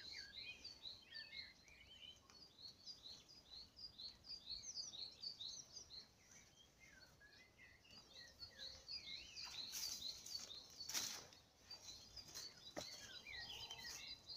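Faint songbird chorus, many short rapid chirps and trills overlapping. A couple of brief noisy rushes come about ten seconds in, and a single click follows shortly after.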